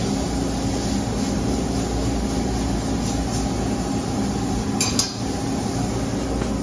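Steady hum of running machinery, with a light metallic clink about five seconds in as a small punched sheet-metal part is set down on the steel sheet.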